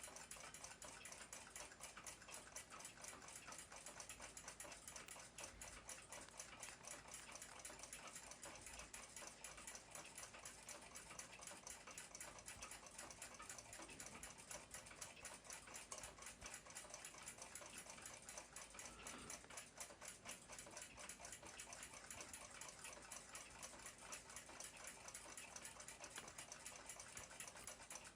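Faint, fast, even ticking of a clock escapement, several ticks a second.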